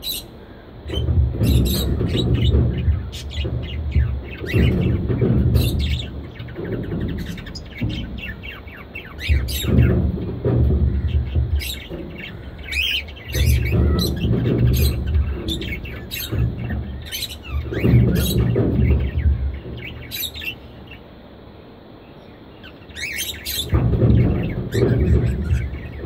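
Budgerigars chirping in an aviary: many short, sharp chirps in scattered clusters. Under them a loud low rumble swells and fades every couple of seconds, briefly dropping away near the end.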